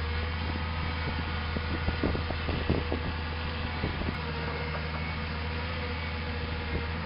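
Cat excavator's diesel engine running steadily with a low hum, a few light knocks about two seconds in.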